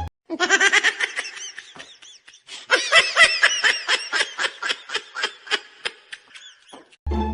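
The sped-up laugh sound effect: high-pitched, rapid laughter in two bouts, a short one and then a longer one, at about five 'ha's a second.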